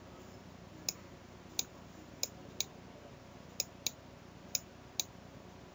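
Eight short, sharp clicks at uneven intervals, from clicking through presentation slides on a computer, over faint room tone.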